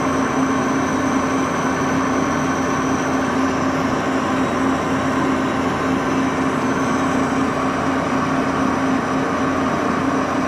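Axelson engine lathe running steadily under power, turning a long steel shaft, with a steady low hum and a fainter high whine that fades and returns.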